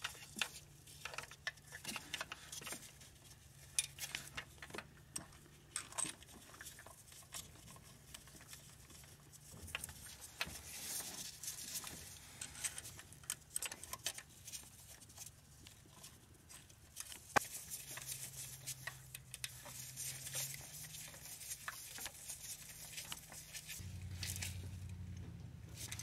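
Scattered small metallic clicks, clinks and light rattles of hand work as a new timing chain tensioner is fitted to the V8's timing chain, with one sharper click about two-thirds of the way through. A faint low hum runs underneath and steps up near the end.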